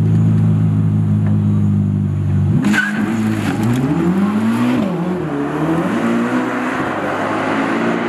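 Red Ferrari's engine held at steady high revs on the start line, then launching about two and a half seconds in and revving up through several quick gear changes as it pulls away down the drag strip.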